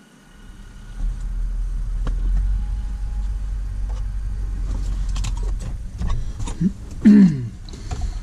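Low, steady rumble of a vehicle engine running, rising in about the first second. Near the end come a few clicks and a short falling squeak.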